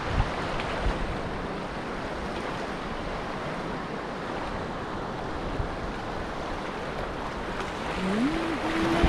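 Steady wash of surf with wind buffeting the microphone. Near the end a pitched sound rises and then holds steady.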